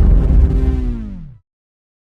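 Intro music sting with a heavy bass, its tones sliding down in pitch before it cuts off suddenly about a second and a half in.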